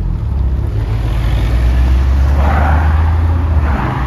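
Car engine running with a steady low hum as cars move off along a road, with a rush of tyre and road noise swelling about two and a half seconds in and again near the end.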